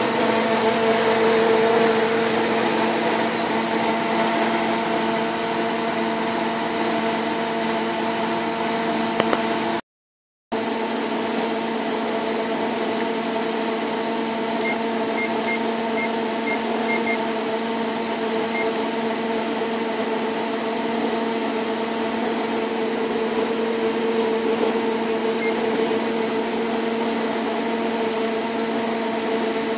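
Steady hum of a powered-up Hitachi Seiki HVP 23 CNC lathe standing with its spindle stopped: hydraulic unit and cabinet cooling fans running. The sound drops out for about half a second about ten seconds in.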